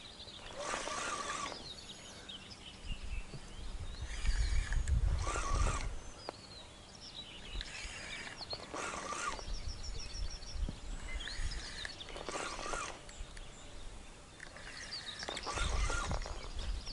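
Small birds chirping along the river, with a harsh, noisy sound that recurs about every three seconds and a low rumble that comes and goes.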